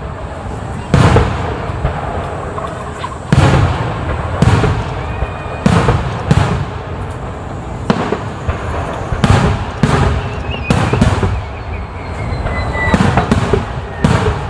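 Aerial fireworks shells bursting in quick succession: about a dozen sharp bangs with deep booms, irregularly spaced roughly a second apart, over a continuous rumble of echoes.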